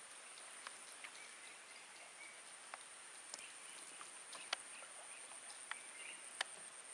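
Faint tropical lakeside ambience: a steady high insect drone with a few short bird chirps, and scattered sharp ticks, the loudest about four and a half and six and a half seconds in.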